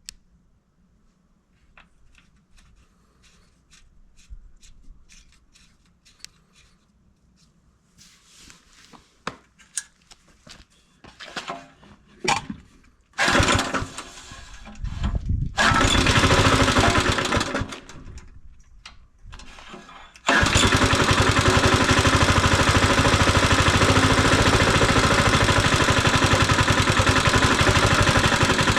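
Mikasa plate compactor's small petrol engine being started: after some faint handling clicks it fires and runs briefly twice, then starts a little past the middle and runs steadily and loudly.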